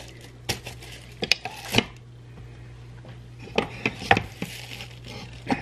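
Tortilla-making at a kitchen counter: scattered sharp wooden knocks and taps as a wooden rolling pin and dough are handled on the countertop. A steady low hum runs underneath.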